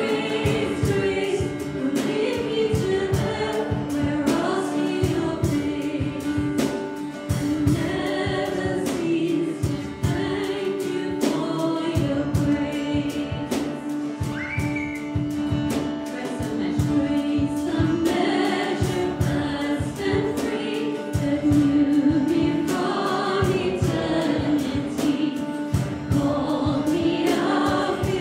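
A man and a woman singing a worship song together, accompanied by an acoustic guitar strummed in a steady rhythm.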